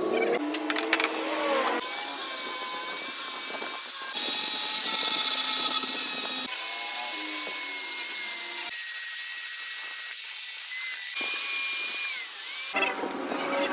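Power tools working on a metal clutch flywheel: a steady machine whine with hissing cutting and grinding noise, changing abruptly every two or three seconds as one tool sound gives way to the next.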